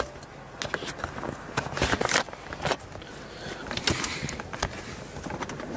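Handling noise inside a car: scattered clicks, knocks and rustling.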